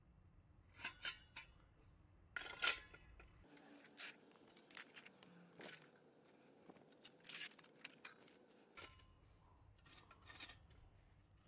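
Light metallic clinks, taps and rubs of stainless-steel secondary-combustion camp stoves and their perforated grates being handled in cotton work gloves and set down on stone pavers. There are a few soft clicks about a second in, a louder string of clinks and scrapes through the middle, and a last pair near the end.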